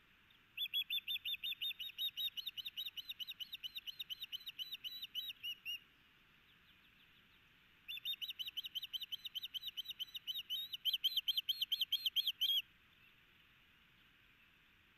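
Osprey calling: a rapid series of high, whistled chirps, about six a second, in two bouts of roughly five seconds each, the second bout getting louder near its end before it stops abruptly.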